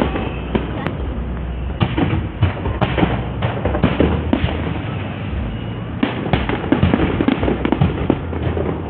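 Aerial fireworks bursting in quick succession: a dense, unbroken run of bangs and crackles over a low rumble.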